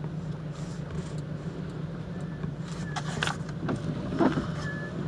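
Steady low hum of a car heard from inside the cabin, with a few sharp clicks about three to four and a half seconds in.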